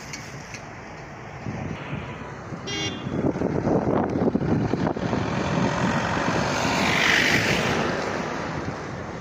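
A vehicle drives past close by on the road, its engine and tyre noise swelling from about a second and a half in, loudest between about four and eight seconds, then easing off. A short horn toot sounds about three seconds in.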